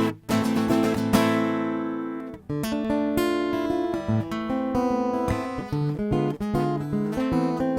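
Solo acoustic guitar playing an instrumental passage: a chord rings for about two seconds, then a brief break, then quick fingerpicked notes.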